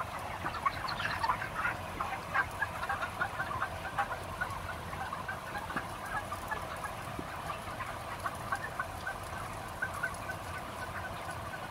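A large flock of broiler chickens near harvest age making many short, overlapping calls, over the steady hum of the house's exhaust fans.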